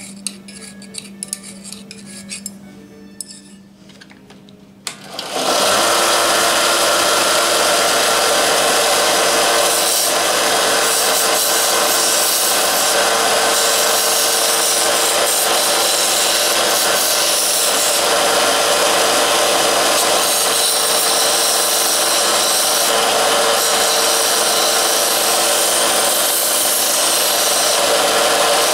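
Hand file scraping a metal casting with light clinks, then, about five seconds in, a small Harbor Freight belt sander starts up and runs steadily while the casting is held against its narrow belt to grind off casting flash.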